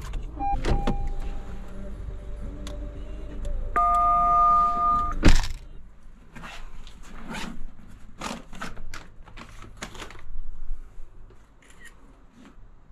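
A steady two-note electronic tone for about a second and a half, cut off by a loud thump like a car door shutting, then a run of light steps and knocks.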